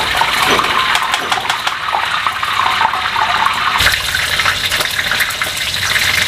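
Chicken pieces deep-frying in hot oil in a wok: a steady sizzle with fine crackling. The sound changes abruptly about four seconds in.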